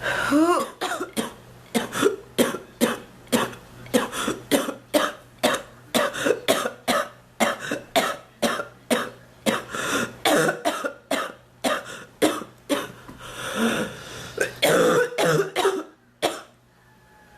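A woman's coughing fit: a long run of short, rapid coughs, two or three a second, then a longer, drawn-out cough about fourteen seconds in before it dies down near the end. This is the persistent cough of someone who is ill and not getting better.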